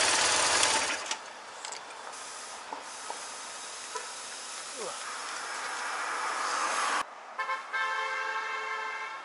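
Street traffic noise with hiss, loudest in the first second and swelling slowly before cutting off about seven seconds in; near the end a steady, horn-like tone of several pitches sounds for about a second and a half, after two short blips.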